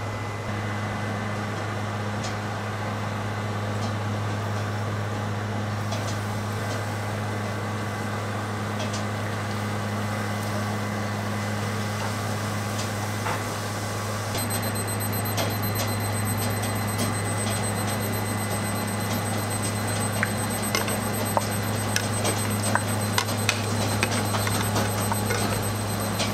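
A steady low machine hum. About halfway in, dough balls frying in a pan of shallow oil add sizzling with small crackling pops, which come thicker and louder near the end.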